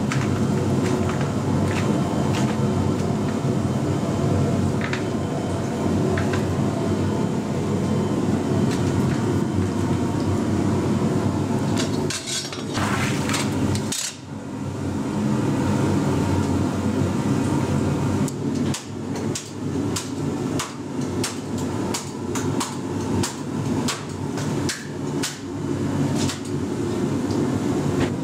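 Repeated hard knocks and some clatter over a steady low rumble, the knocks coming quicker and thicker in the last ten seconds.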